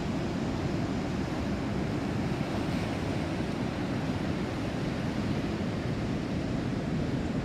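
Ocean surf washing onto a sandy beach, a steady rushing noise without distinct breaks, with wind buffeting the microphone and adding a low rumble.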